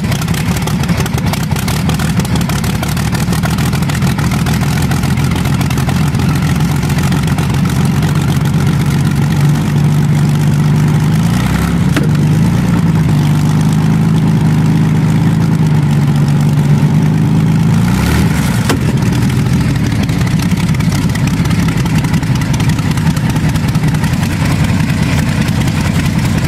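Packard Bentley's 42-litre water-cooled V12 engine running at a deep, steady idle, with brief changes in pitch a little before halfway and again about two-thirds through.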